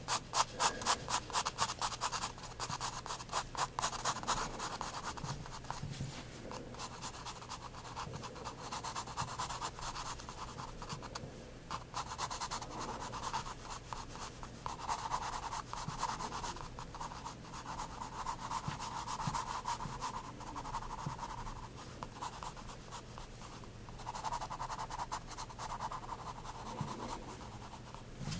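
Soft 9B graphite pencil scratching on sketchbook paper. It makes quick, short hatching strokes for the first few seconds, then longer, slower strokes with brief pauses between them.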